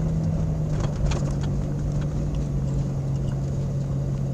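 1999 Jeep Cherokee XJ engine and drivetrain under load, pulling uphill, heard from inside the cab. A steady drone that drops slightly in pitch about a second in and again midway through.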